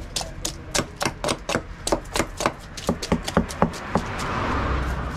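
Quick, repeated knife strokes scraping scales off a snakehead fish on a wooden block, each stroke a sharp scrape at about three a second. A steadier rushing noise takes over near the end.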